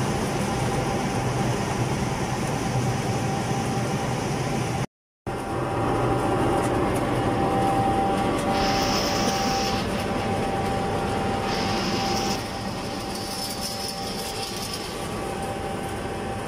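SZLH420 ring-die feed pellet mill and its production line running under load: a steady mechanical drone with a low hum and a constant whine. A higher hiss comes and goes three times in the second half, and the sound breaks off briefly about five seconds in.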